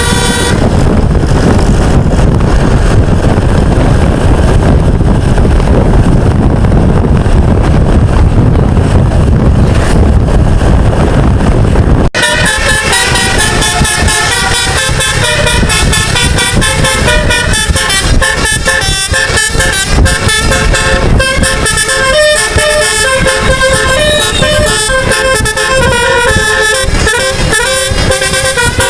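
For about the first twelve seconds a loud, even rumbling rush with no tune in it; then it cuts off abruptly and a bus's telolet musical air horn plays a quick melody of shifting notes.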